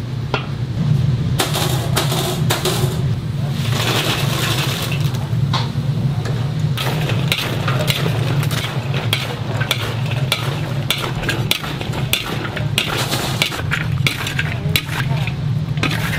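Metal spatulas scraping and clinking against a large steel wok as crisp fried chicken pieces are tossed through sticky sweet-and-sour sauce, the strokes coming thick and fast in the second half. A steady low hum runs underneath.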